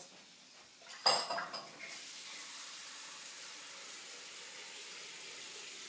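A dish or pan clinks sharply about a second in. Then a steady high sizzle sets in, food frying in a pan.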